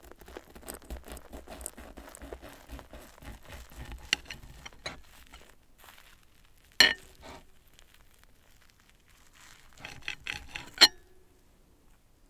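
Metal knife and fork scraping and clinking on a ceramic plate while cutting a souffle omelette: a run of light scrapes and taps for about five seconds, one sharp clink near the middle, and a quick cluster of clinks near the end.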